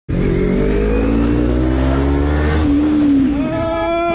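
Sport motorcycle engine accelerating, its pitch rising steadily over the first two to three seconds, then holding a steadier note near the end.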